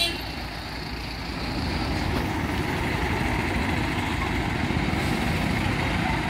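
Heavy diesel engines of a hydra mobile crane and a truck running at low speed: a steady low rumble that grows a little louder after about a second.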